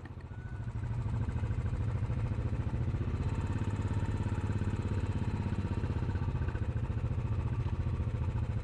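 Motorcycle engine running at low revs, a steady low rumble with a fast even pulse that swells over the first second.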